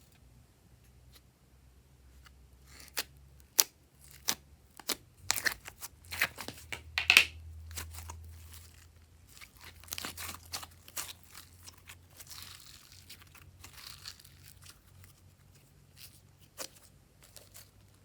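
Glossy slime being mixed and squished, giving irregular sticky pops and crackles, loudest and thickest a few seconds in.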